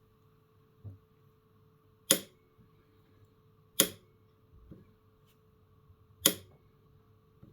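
Click-type torque wrench breaking over three times, single sharp clicks about two seconds apart, as cam sprocket bolts reach the set 34 ft-lb. A few softer taps in between, over a faint steady hum.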